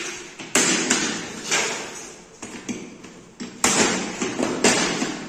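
A series of sudden knocks and scrapes, about seven in five seconds, from handling the Samsung split air conditioner's indoor unit.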